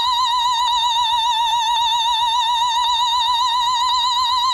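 A singer holding one very high, operatic note with an even vibrato, unaccompanied.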